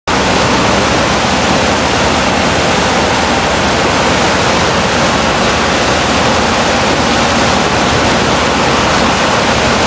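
Loud steady rushing noise that does not change.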